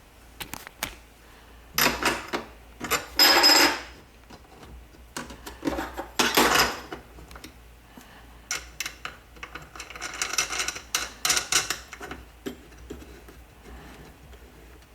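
Plastic pet carrier and its hardware being handled and fitted together: irregular rattles, clicks and scrapes in short bursts, about two seconds in, around three and a half seconds, around six seconds and in a busier cluster from about ten to twelve seconds.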